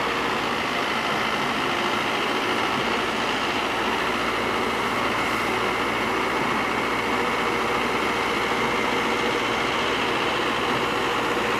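Mahindra Arjun Novo combine harvester's engine and threshing machinery running steadily while its unloading auger pours threshed grain into a tractor trolley.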